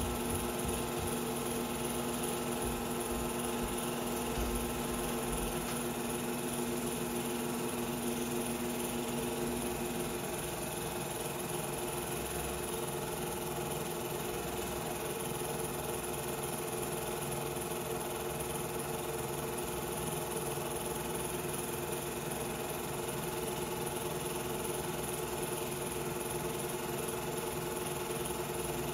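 Film projector running: a steady mechanical whir with several constant hum tones, the lowest of which drops out about a third of the way in.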